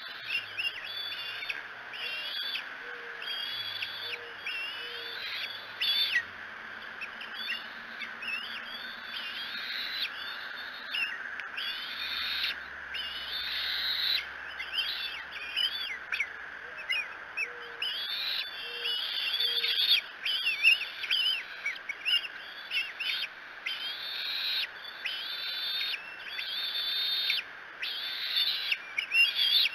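Many bird calls overlapping throughout, a busy mix of short chirps and whistled phrases.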